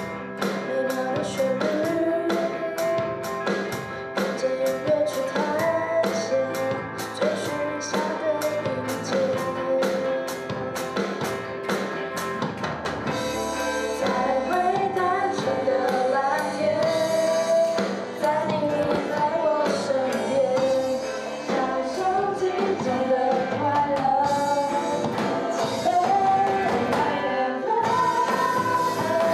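A small band playing a pop-rock song live: singing over acoustic and electric guitars, bass and an electronic drum kit, with a steady beat. Near the end the song moves into its chorus.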